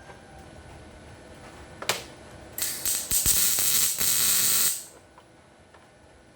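MIG welder tack-welding captive bolts onto a seat bracket: a brief arc strike about two seconds in, then about two seconds of loud crackling hiss from the arc, broken twice, that stops sharply.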